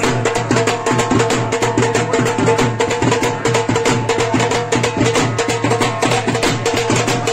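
Music with a fast, steady percussion beat over a held tone.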